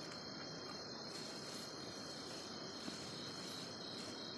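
Night insects in a steady, unbroken high-pitched chorus, a constant trill over a soft hiss.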